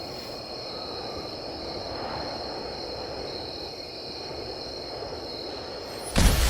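Steady ambient background noise with a faint high steady whine. Near the end a sudden loud low rumble cuts in.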